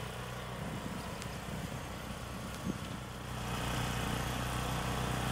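Small engine of a motorised walk-behind orchard sweeper running steadily as it is pushed over the grass, growing a little louder about three seconds in.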